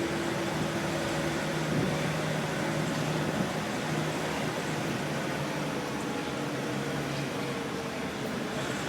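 BMW N52B25 2.5-litre straight-six engine running with a steady drone. The owner is trying to locate a knock that he hears from it under load.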